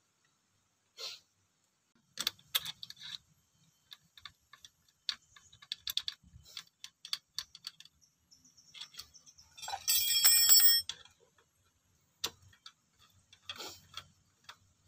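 Scattered clicks and light metal taps from hands fitting parts of a Yamaha Mio scooter engine's cylinder and cam-chain area. About ten seconds in comes a louder metallic clink that rings for about a second.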